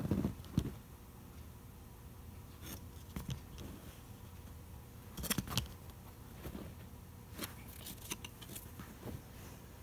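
A cardboard hang tag and a paper price tag being handled and turned over by hand: light rustles and crisp paper clicks, with a couple of low knocks at the start and a louder cluster of clicks about five seconds in.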